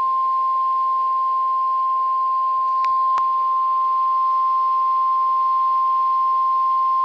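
NOAA Weather Radio 1050 Hz warning alarm tone: one steady, unbroken beep over faint radio hiss. It signals that a warning broadcast, here a flood warning, is about to be read. Two faint clicks come about three seconds in.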